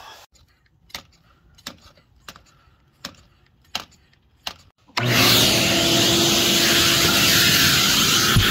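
Hand vacuum-bleeder pump worked by its squeeze handle, a series of sharp clicks about one every two-thirds of a second, bleeding air from the clutch hydraulic line at the slave cylinder. About five seconds in a vacuum cleaner switches on and runs loud and steady with a constant hum.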